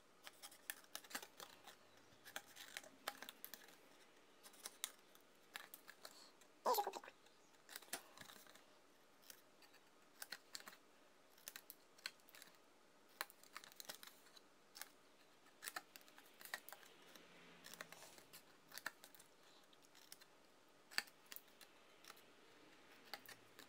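Small scissors snipping cardstock: many faint, short, irregular snips as the blades close through the card. One brief louder sound comes about seven seconds in.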